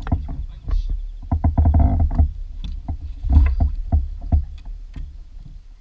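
Irregular knocks and clicks on a plastic fishing kayak, over a steady low rumble.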